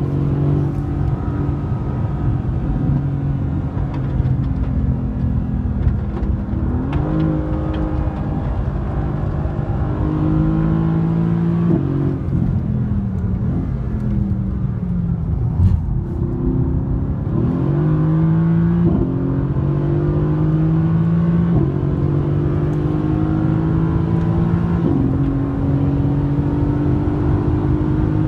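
Mercedes-AMG GT's twin-turbo V8 heard from inside the cabin under hard driving on a track: the engine note climbs through each gear and drops abruptly at several upshifts, and glides down where the car slows for corners.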